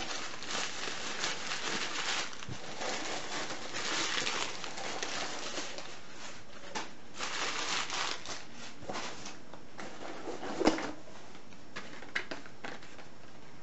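Newspaper packing rustling and crinkling as it is handled and pulled from a cardboard box, with one sharp knock near the end.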